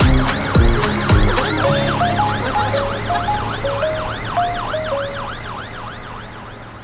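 Cartoon fire engine siren, a fast rise-and-fall wail about twice a second, fading away. Under it the song's backing music plays: drums for the first couple of seconds, then a simple tune that fades with the siren.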